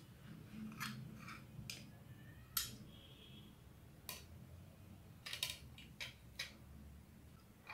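Faint, scattered clicks and taps of a metal utensil against china plates as a slice of cake is lifted onto a plate, about eight in all, the sharpest about two and a half seconds in.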